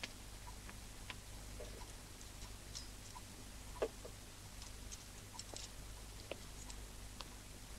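Faint scattered clicks and light knocks of glassware and crockery being handled at a serving hatch, with one louder knock a little under four seconds in, over a low steady hum.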